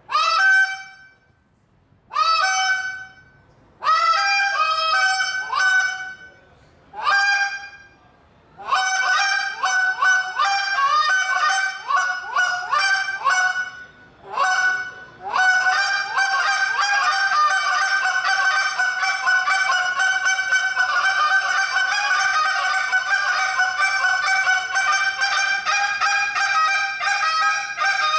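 A goose call blown into a microphone in a contest routine: short separate series of honks with brief pauses for the first eight seconds or so, then fast, nearly unbroken calling with only a short break about halfway through.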